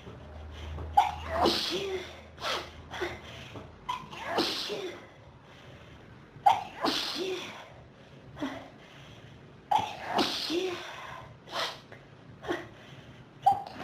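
A person in a sneezing fit, sneezing about five times, roughly every three seconds, with short sharp breaths between the sneezes. The fit comes from a dust and pollen allergy.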